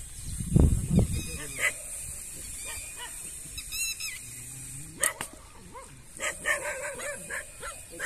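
A dog barking and yipping in short calls, mostly a quick run in the second half. There are a couple of loud dull thumps about half a second in.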